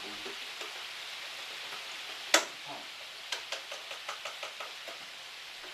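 Meatballs sizzling in a frying pan, a steady hiss, with one sharp knock about two seconds in and a few lighter clicks after it.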